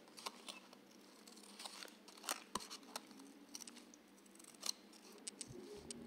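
Small scissors snipping pieces out of a thin water-slide nail decal sheet: a run of faint, irregular snips, a few sharper than the rest.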